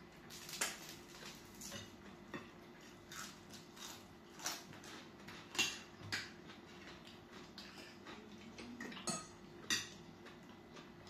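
Spoons and forks clinking and scraping on plates while eating, in irregular, scattered taps.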